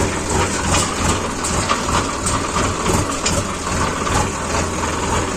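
Sonalika Sikandar 39 tractor's diesel engine running steadily, heard up close from the driver's seat.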